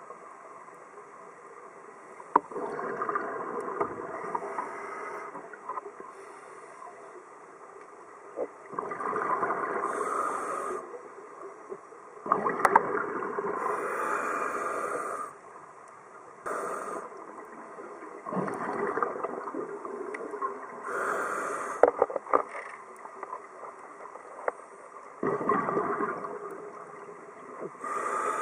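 Scuba diver's regulator exhaust: bursts of bubbles lasting one to three seconds each, repeating every few seconds with each exhalation, with quieter gaps between. A few sharp clicks are scattered through.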